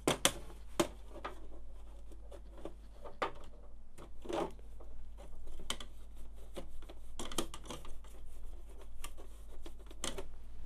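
Dry paintbrush bristles scrubbing and scratching over the shaft and plastic parts inside an HP Laser 107w laser printer, in irregular quick strokes, the loudest right at the start. A faint steady hum runs underneath.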